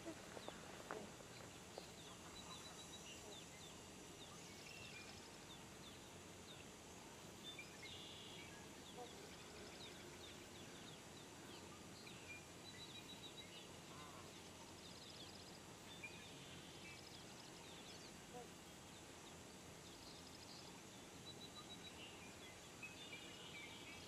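Quiet outdoor background with faint, short bird calls scattered throughout, coming singly and in small clusters.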